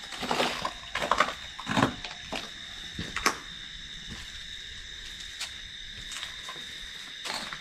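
Steady high-pitched chirring of night insects, crickets, throughout. Over it come several short, sharp knocks and crunches in the first few seconds and again near the end.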